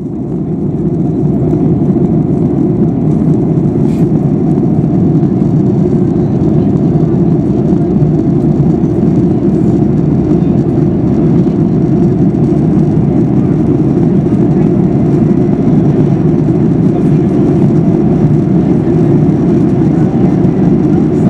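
Steady cabin noise of a Boeing 737-800 in flight: a low, even rush of airflow and engine noise heard from inside the passenger cabin. It fades in over the first couple of seconds, then holds steady.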